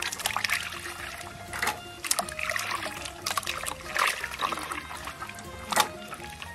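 Hands rubbing and kneading raw pig large intestines in water, giving irregular wet squelches and splashes, the loudest near the end. Background music with steady notes plays underneath.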